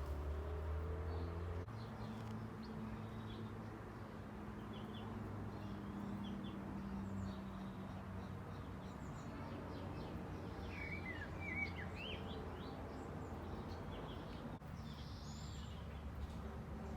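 Small birds giving a few short high chirps, clearest about eleven seconds in, over a steady low hum.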